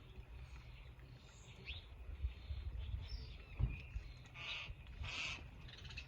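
Small backyard birds chirping and calling with short high notes, with two brief harsh, noisy calls near the end. A sharp knock about halfway through, over a steady low rumble.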